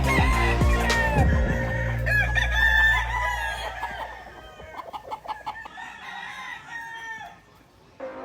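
Chickens clucking and calling, with a rooster crowing among them.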